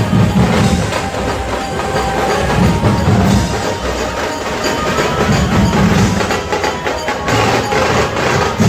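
Loud percussion-heavy processional music: dense, rapid drum strokes over deep drum beats that swell every two to three seconds.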